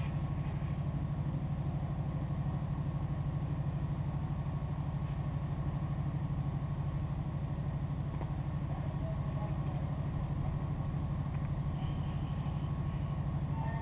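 A moored car ferry's engines running steadily: a low, even hum with a fast throb and a faint steady whine above it.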